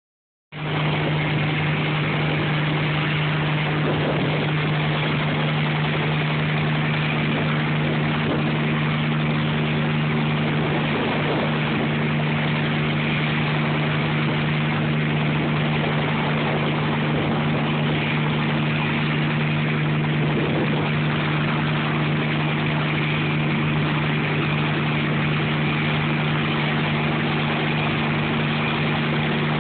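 Hiller UH-12C helicopter hovering just above the ground, its piston engine and main rotor running with a steady, unchanging drone that comes in about half a second in.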